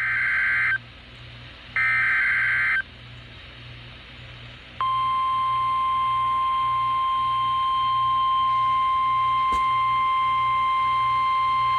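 Emergency Alert System (SAME) header data bursts from a NOAA Weather Radio broadcast: two short screeching digital bursts about a second apart, then from about five seconds in the steady, piercing 1050 Hz warning alarm tone that announces a severe thunderstorm warning.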